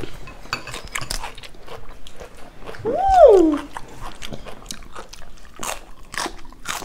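Close-miked chewing of crisp raw lettuce, with many short crunches in a row. A little under halfway through, a short vocal sound rises and then falls in pitch, the loudest moment.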